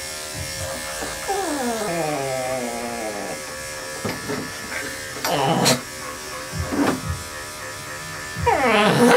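Corded electric dog clippers running steadily as they shave through a heavily matted poodle coat. Over the hum come a long falling pitched sound about a second in and a few short, louder pitched sounds later on.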